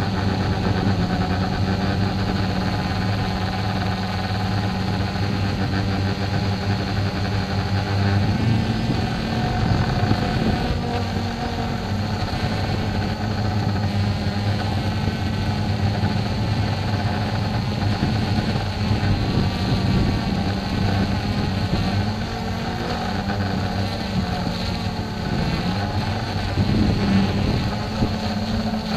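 DJI Phantom 2 quadcopter's electric motors and propellers humming steadily, heard up close from the camera mounted on the drone itself. The pitch wavers a few times as the motor speed changes.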